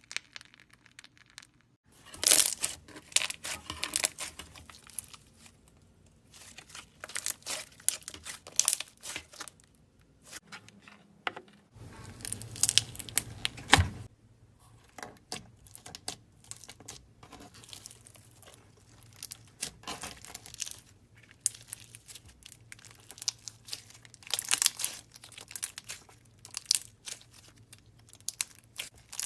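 Slime, including crunchy slime, being pressed and squeezed, giving dense crackling and crinkling in bursts with short pauses and abrupt changes from one texture to the next.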